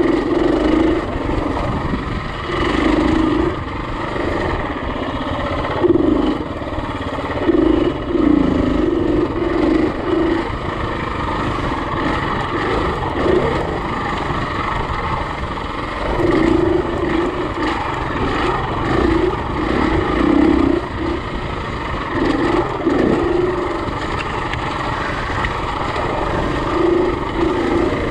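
Single-cylinder four-stroke dirt bike engine running under load on a trail, revving up and down in short surges as the throttle is worked.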